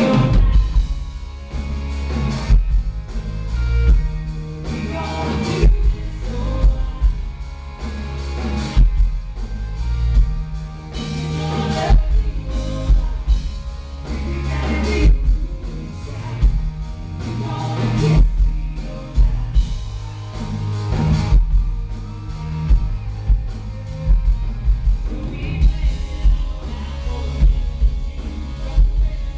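Live country band playing a song on stage: a woman singing lead over guitars, bass and a drum kit keeping a steady beat.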